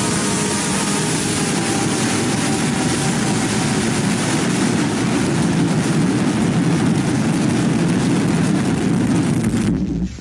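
Loud scary sound effect: a dense, steady noisy rumble with no clear pitch that swells slightly and cuts off abruptly just before the end.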